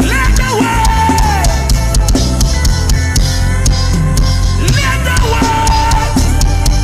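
Worship band music with a drum kit keeping a regular beat over a steady bass. A held, gliding melody line comes in twice, at the start and again about five seconds in.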